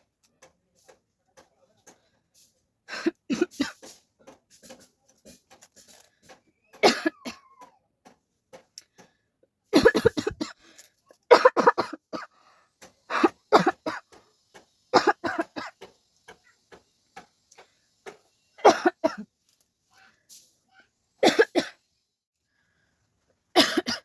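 A person coughing in short fits, about nine of them two to three seconds apart, some with two or three coughs in quick succession.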